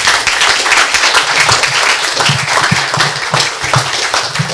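An audience applauding, many people clapping at once.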